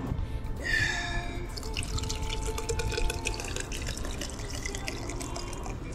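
Pocari Sweat sports drink poured from a plastic bottle into a black cycling water bottle, splashing and gurgling as it fills. A brief falling high-pitched tone sounds about a second in.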